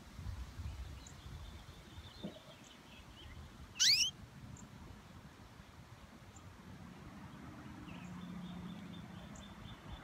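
Canary giving one loud, quick rising call about four seconds in, with a few faint chirps before and after it.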